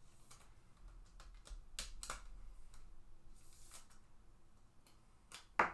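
Faint scattered clicks and taps of small handling, with a couple of sharper ones about two seconds in and a loud sharp click near the end.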